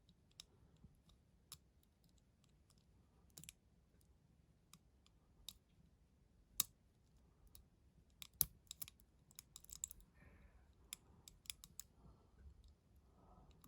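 Faint, irregular metallic clicks and light scraping of a lever pick and tension tool working the levers inside a five-lever padlock, the clicks coming closer together in the second half.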